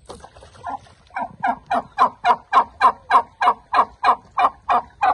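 A turkey calling in a fast, even series of about fourteen harsh notes, roughly three a second. The notes start about a second in, grow louder and break off suddenly. It is the noise the host says turkeys make when they see a stranger.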